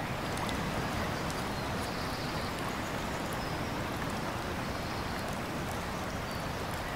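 Wind blowing across the microphone with small waves lapping on a pebble shore: a steady rushing noise.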